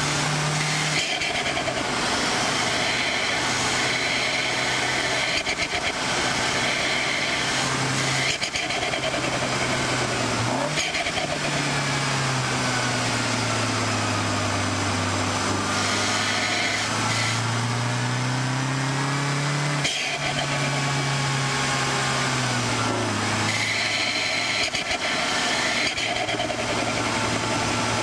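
MINI Cooper S's turbocharged four-cylinder engine under track driving. Its note falls as the car slows through a corner in the middle, then climbs again under acceleration, with sudden drops in pitch at the gear changes. Road and wind noise run underneath.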